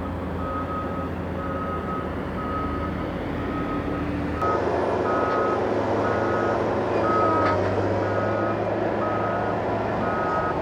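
Heavy construction machine's reversing alarm beeping steadily, about one and a half beeps a second, over the running engine; the engine sound gets louder about four seconds in.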